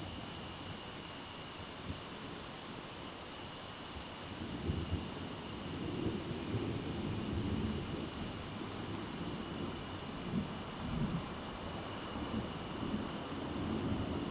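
Steady night chorus of crickets, an even high trill. About four seconds in, a low rumble of distant thunder rolls in and keeps going, swelling and fading. Three short high rasps come near the end.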